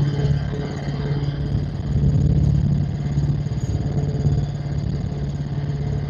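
Helicopter in flight: its engine and rotor run as a steady low drone.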